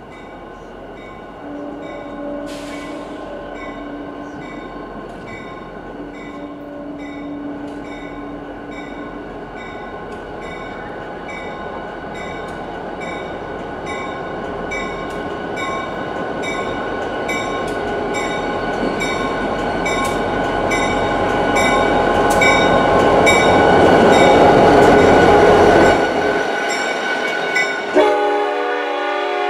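NJ Transit EMD GP40-2 diesel locomotive approaching and passing: its horn sounds two long blasts in the distance within the first ten seconds, then the engine and rolling train grow steadily louder as it nears, and a loud horn chord sounds near the end as the tank cars roll by. A regular high ding repeats about twice a second underneath.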